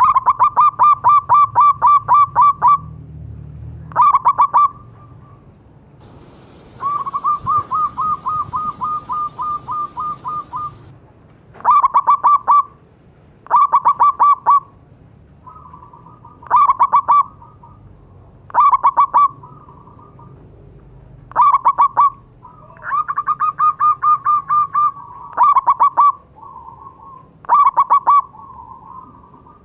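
Zebra dove (perkutut) singing: about ten phrases of rapid, staccato cooing notes, each phrase a quick run of clipped coos, repeated every couple of seconds. Twice, a quieter and longer run of notes comes between the louder phrases.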